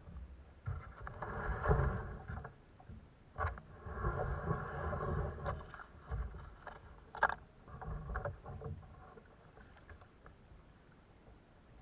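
Kayak paddling: the paddle working the water in a few longer stretches, with sharp knocks and handling noise against the hull.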